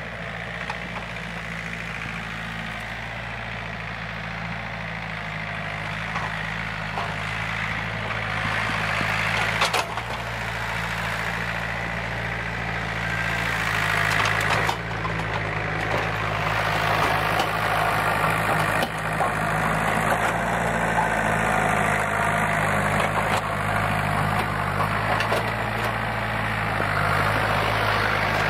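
John Deere 4600 compact tractor's diesel engine running steadily, growing louder as the tractor draws near, with a couple of sharp knocks partway through.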